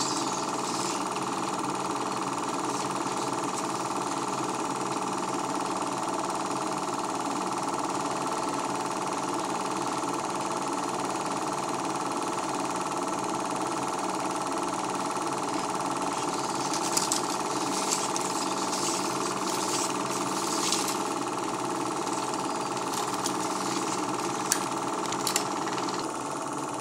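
Home-movie film projector running steadily, a constant mechanical clatter and whir from its motor and film-advance mechanism. A few sharp clicks and crackles come in about two-thirds of the way through.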